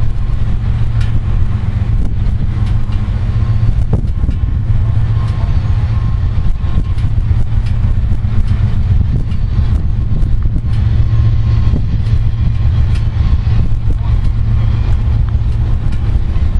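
Steady, loud low rumble of approaching CSX GE ES44DC diesel-electric locomotives running at an even throttle, with a faint high tone above it.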